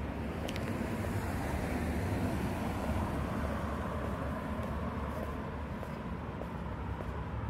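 A car passing on the street, its tyre and engine noise swelling and then fading as it drives off, over a steady low rumble.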